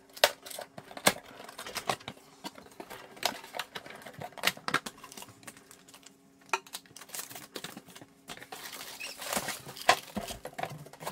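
Cardboard box being opened by hand: irregular knocks, taps and scrapes of the flaps and inserts. Near the end, crinkling plastic wrap as the wrapped canister filter is lifted out.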